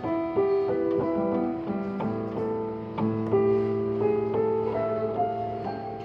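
Digital piano with a grand-piano body, played by hand: a melody of separate notes over chords, with a low note held from about two seconds in, growing softer near the end.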